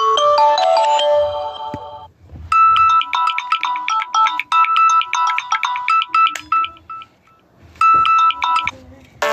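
Phone ringtones playing from a phone's speaker. A marimba-like ringtone melody of falling notes fades out about two seconds in, then a different ringtone, a rapid run of high electronic beeping notes, plays for a few seconds, stops, and starts again briefly near the end.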